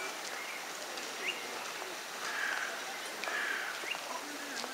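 Young mallards calling softly: a few short, thin, rising peeps, with two longer, rougher calls in the middle, over a steady outdoor hiss.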